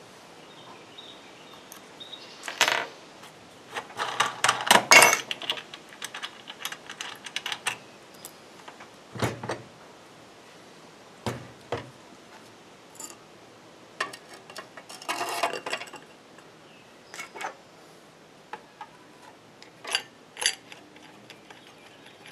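Allen wrenches and metal parts of an electric chainsaw sharpener clinking and clattering as the grinding wheel's arbor is unscrewed and the wheel is handled. The clinks come irregularly, with the loudest flurry about four to five seconds in and scattered single knocks after.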